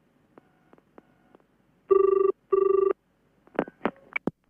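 Telephone ringing in the British double-ring pattern: two short warbling rings about two seconds in, followed by a few sharp clicks just before the call is answered.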